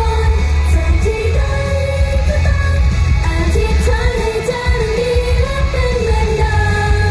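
Live idol-pop song played through a stage PA: girls' group vocals singing the melody over a backing track with strong bass.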